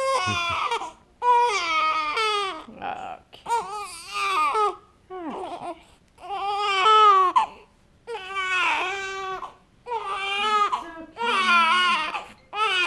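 Infant crying in a run of wails, each about a second long, with short catches of breath between them.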